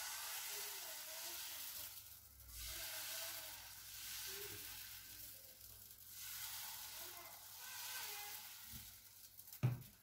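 Faint sizzling of qatayef batter as it is squeezed in small rounds onto a hot nonstick frying pan, swelling and fading every couple of seconds. A single knock near the end.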